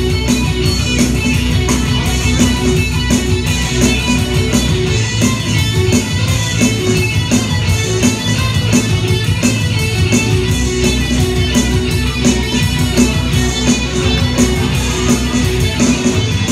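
Live rock band playing: strummed and picked electric and acoustic guitars over bass and a drum kit keeping a steady beat.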